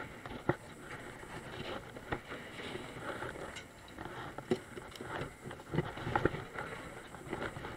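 Steady background noise on a fishing boat's deck, broken by a handful of short, sharp knocks as a freshly caught fish is handled and put into a bag-lined plastic cooler.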